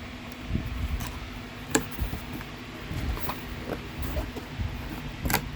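Scattered knocks and clicks of a boxed Sony speaker being handled, with two sharper knocks about two seconds in and near the end, over a steady low hum.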